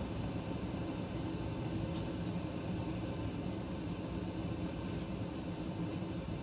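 Steady low mechanical hum of kitchen room tone, with a few faint ticks.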